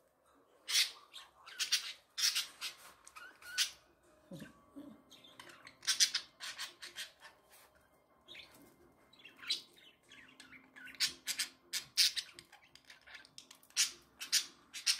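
Budgerigars chattering: an irregular string of short, sharp chirps and squawks.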